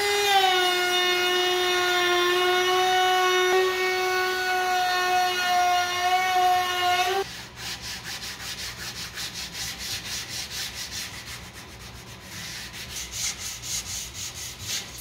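Compact router running with a steady high whine as it cuts a chamfer along the edge of a walnut and maple end grain cutting board. It stops abruptly about seven seconds in. Then comes hand sanding of the board's edge with a sanding block, quick back-and-forth scraping strokes several times a second.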